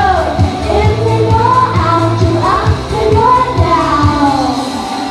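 Pop song with a woman singing over a steady kick-drum beat.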